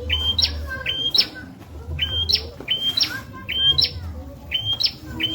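Prenjak (prinia) singing its repeated phrase about once a second: a short held high note that snaps up into a quick rising chirp, six or so times in a row.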